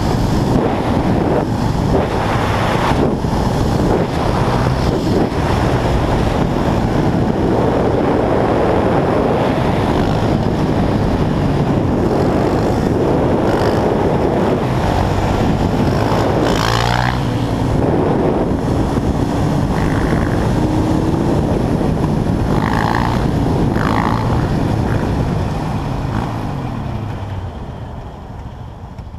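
Quad bike engine running at speed under heavy wind rush on the microphone, steady and loud, with a brief swell in pitch a little past halfway. It dies down over the last few seconds.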